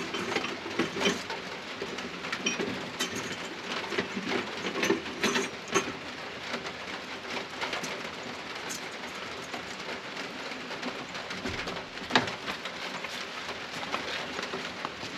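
Steady hiss of rain with scattered metal clinks and knocks as steel shims are slid in between bulldozer parts; one sharper knock comes about twelve seconds in.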